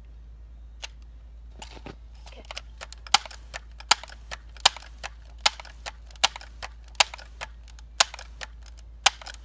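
Multi-pump pneumatic air rifle being pumped up: a sharp click on each stroke of the pump lever, about one stroke every 0.8 seconds from a few seconds in, with softer clicks between the strokes.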